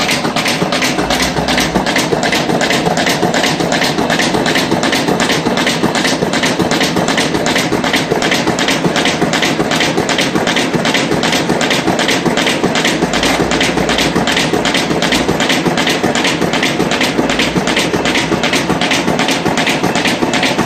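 Duplo DF-1000 air suction paper folder running at high speed, feeding and folding sheet after sheet. It makes a rapid, even clatter of nearly three strokes a second over a steady whir.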